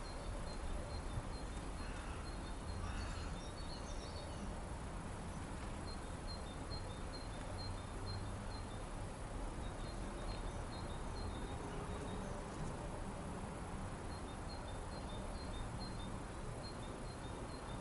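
Spring outdoor ambience: a steady hiss with a low rumble, over which something gives runs of short, high, evenly repeated chirps, with a few other brief chirps about two to four seconds in.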